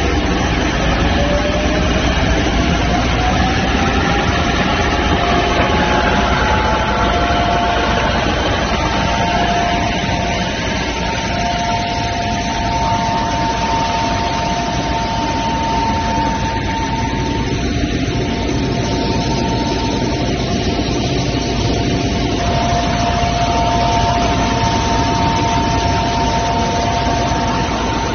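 Road sweeper truck running while sweeping, with its brushes turning and water spraying: a steady engine and blower rush, with a whine that rises in pitch over the first six seconds or so, then holds steady.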